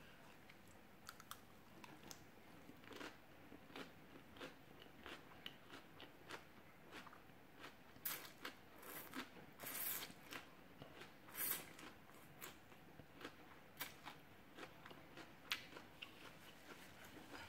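A person chewing and smacking on a mouthful of khanom jeen rice noodles, close to the microphone: many short wet clicks and smacks throughout, with a longer slurp of noodles about eight seconds in.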